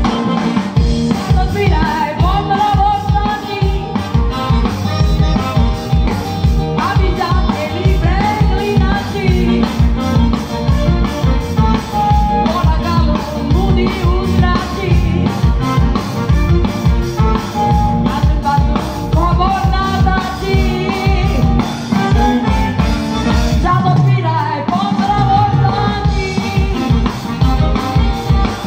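Live band music with a woman singing lead over a steady beat, amplified through a stage sound system.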